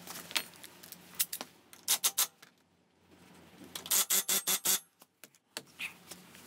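Cordless impact wrench hammering in a short rattling burst on the drive-pulley (variator) nut of a Yamaha Cygnus X scooter's belt drive about four seconds in, as the nut is run down on reassembly. A few sharp knocks from the tool come about two seconds in.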